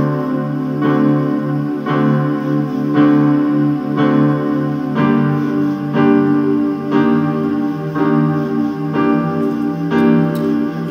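Background piano music: slow, sustained chords, a new one struck about once a second.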